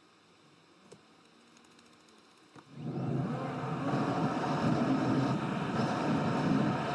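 Car driving noise heard inside the cabin, mostly tyre and road rumble with wind: very faint at first, then rising abruptly about three seconds in to a steady rushing noise.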